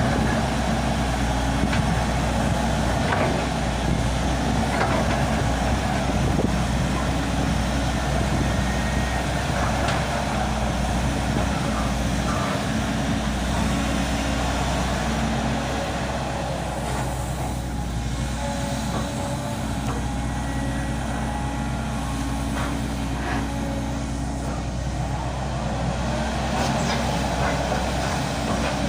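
Volvo 200 excavator's diesel engine running steadily under work, with a few scattered knocks.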